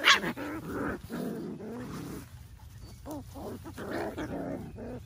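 Puppies play-fighting: a sharp, high yelp right at the start, then wavering growls and whines in two bouts with a short lull between.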